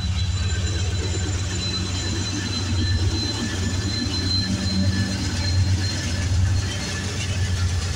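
Two GE AC44C6M diesel-electric freight locomotives passing close at track speed: a steady low engine drone with wheel-and-rail rumble, and a thin high whine held throughout.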